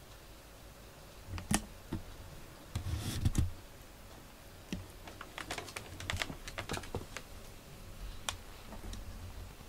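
Computer keyboard keys clicking in irregular short runs, with a few louder clicks and soft knocks about three seconds in.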